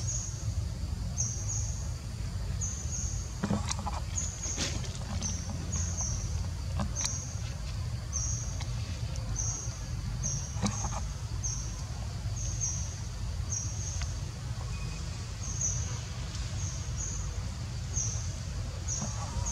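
A high, short chirp repeating evenly, more than once a second, over a steady low rumble, with a few sharp clicks.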